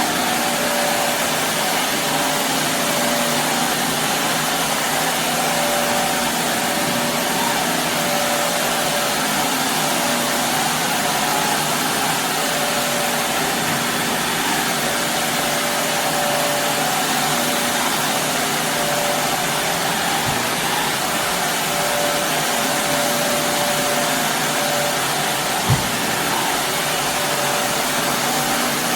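Shark Navigator Lift-Away upright vacuum running steadily as it is pushed over carpet, a constant whooshing motor noise with a faint hum. A single short knock sounds near the end.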